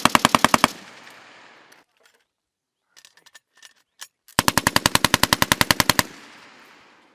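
Machine gun firing two bursts: the end of one burst stops under a second in, and after a gap with a few faint distant shots, a longer burst of about twenty rapid, evenly spaced rounds starts about four seconds in. Each burst is followed by a fading echo.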